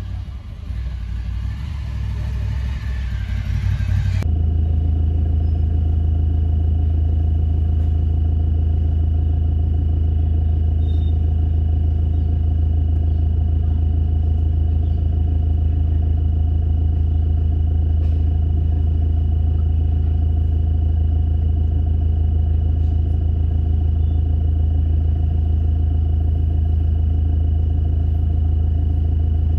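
A car engine idling, heard from inside the cabin as a steady low hum. About four seconds in, the mixed outdoor noise stops abruptly and only the even hum remains.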